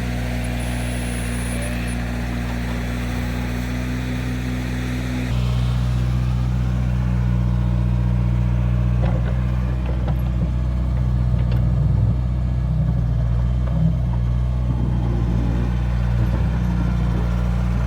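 Digging machine's engine running steadily, its note changing abruptly to a louder, lower drone about five seconds in, with a few faint knocks from the work.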